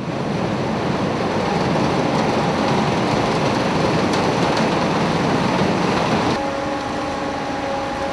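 Water churning and rushing against a large ship's hull, stirred by its bow thruster, as a steady, even wash. About six seconds in it gives way suddenly to a quieter steady machinery hum with several held tones.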